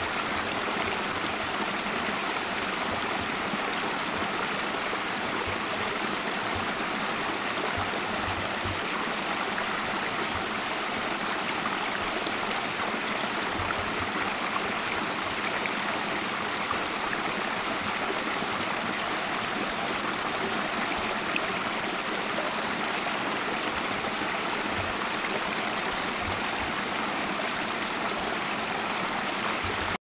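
Small snowmelt creek running over rocks between snow and ice, a steady, even rush of flowing water.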